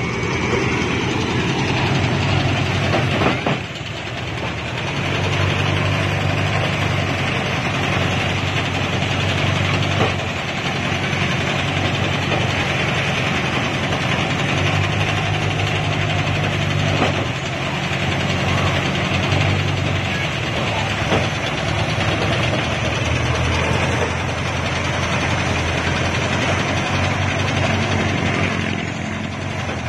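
Engine-driven drum rice thresher running, its motor humming steadily under the rattle of the threshing drum as bundles of rice stalks are fed in, with a few sharp knocks along the way.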